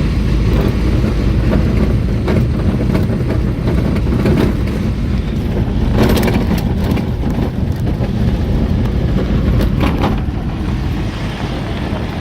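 A vehicle driving on a rough road: a steady low rumble of engine and road noise with wind buffeting the microphone. A few sharp rattles or bumps come about halfway through and again near the end.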